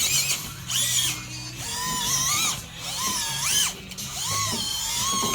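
Electric motor and gears of an Axial Deadbolt RC rock crawler whining in several short throttle bursts, the pitch rising and falling as it crawls over the course.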